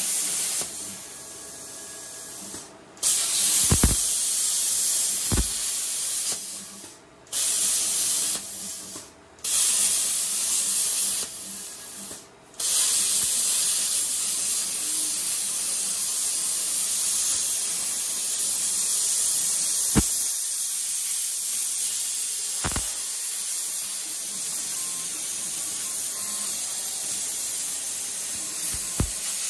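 CNC plasma cutter torch arc hissing loudly as it cuts sheet metal. It stops and restarts several times in the first half between cuts, then runs unbroken, with a few faint clicks.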